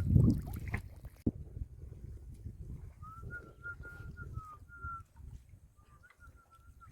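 Muddy water splashing and sloshing, loudest in the first second, with a sharp knock just after. A thin, wavering whistle-like tone of unknown source runs through the middle and comes back near the end.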